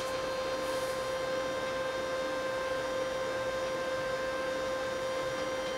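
A steady electrical hum: one even mid-pitched tone with a fainter higher tone above it, over a soft hiss.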